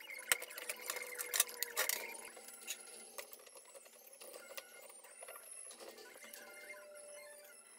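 Clicks and metallic clinks from a plastic pipe welding machine's metal carrying case being opened, then the welder and a metal bench clamp being handled. The clinks come thick and fast for the first two seconds, then thin out to scattered knocks.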